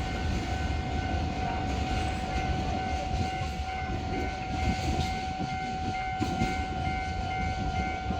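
Container freight train rolling past, a steady low rumble with a steady high-pitched tone held over it that stops just after the end.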